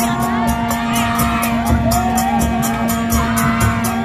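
Parade music: a long horn holds a steady low drone over drum beats and a fast, even high jingling beat about four to five strokes a second, with voices calling and whooping over it.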